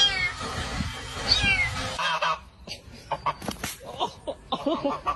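A kitten meowing twice with high, falling cries, at the start and about a second and a half in. After about two seconds a goose is honking, with short knocks and scuffles.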